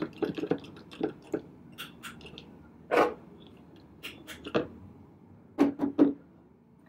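Handling noise from a lacquered wooden jewellery box: fingers clicking, scraping and tapping on the wood and picking at a small metal fitting, with a louder knock about three seconds in and three quick taps near the end.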